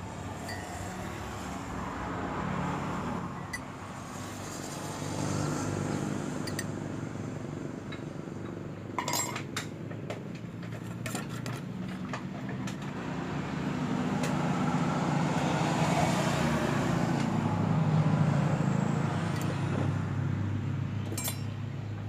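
Scattered light clinks of a spoon or utensils against a glass or cup while a cocoa drink is mixed, over a steady low hum that swells for a few seconds in the second half.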